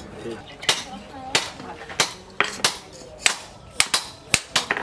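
Hand hammer striking hot leaf-spring steel on an anvil: about ten sharp, ringing metal blows at an uneven pace, coming quicker near the end, as a billhook blade is forged.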